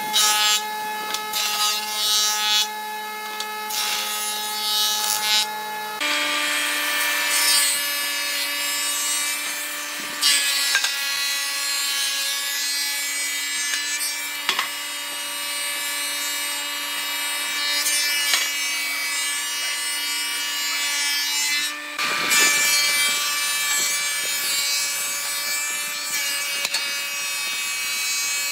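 Woodworking jointer and thickness planer running, their spinning cutterheads planing boards with a steady machine hum and whine over the rushing noise of knives cutting and chips flying. The pitch of the hum jumps twice, about 6 and 22 seconds in.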